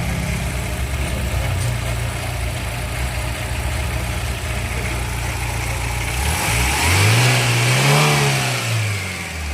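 Car engine with a cylinder misfire, idling steadily and then revved once: the pitch rises about two-thirds of the way in and falls back to idle near the end. The engine is running during an ignition coil check.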